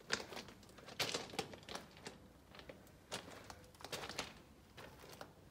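Footsteps crunching on loose stone track ballast, an uneven step about once a second.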